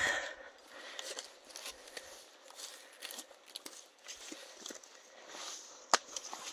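Hiking-boot footsteps through wet ground and low plants, uneven steps with a rustle of vegetation, and one sharp click about six seconds in.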